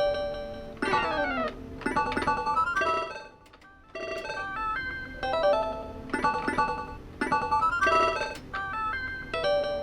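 Electronic game music from a Hanabi Zekkei pachislot machine in normal play: a bright melody of short plucked-sounding notes in repeating phrases. A quick run of notes comes about a second in, and the music breaks off briefly a little past three seconds before starting again.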